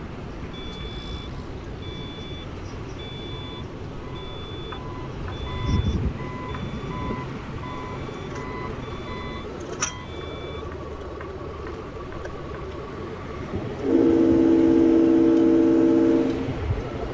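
Radio-controlled Tamiya semi truck's sound module: a steady engine running sound with reversing beeps about twice a second, which stop after about ten seconds. Near the end comes a loud multi-tone air horn blast lasting about two and a half seconds.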